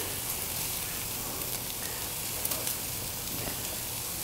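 Steaks sizzling steadily on a hot gas grill's aluminum grill liner, with a few sharp crackles and pops.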